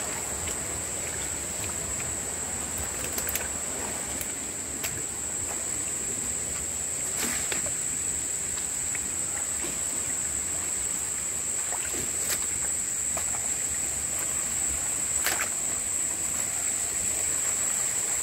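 A steady, high-pitched insect drone over the hiss of running creek water, with a few scattered sharp crunches of footsteps on rocks and leaf litter.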